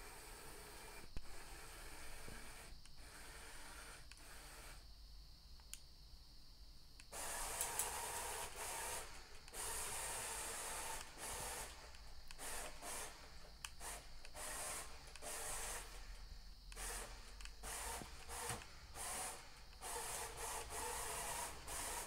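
Wheel drive motors and gearboxes of an old Roomba whirring in stop-start stretches, switched on and off from a game controller. The first few seconds are quieter, with a few clicks, and the motors run in repeated bursts after that.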